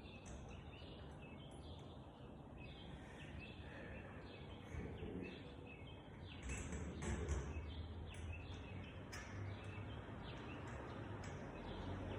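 Small birds chirping repeatedly in the background: short, quick downward-sliding chirps scattered throughout, over a low steady rumble.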